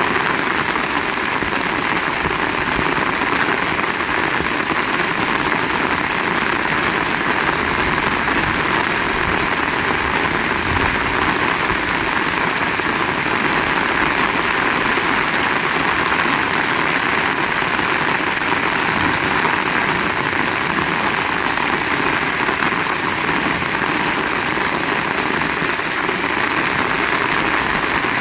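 Heavy rain falling, a steady dense noise with no let-up.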